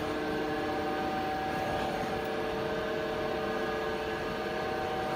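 Steady machine hum: several even tones over a low rushing noise, unchanging throughout. No separate sound from the flame stands out.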